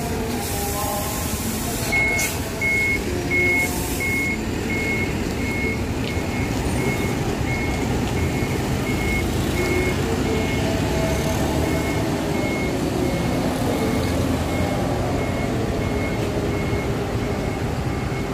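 Intercity coach bus manoeuvring: its diesel engine runs with a steady low rumble while a warning beeper starts about two seconds in and keeps beeping evenly, a little under two beeps a second. Two short, sharp air-brake hisses come in the first few seconds.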